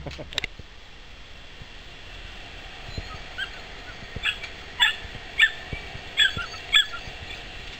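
A puppy whining and yipping: a run of about seven short, high-pitched cries starting about three seconds in, the loudest in the second half.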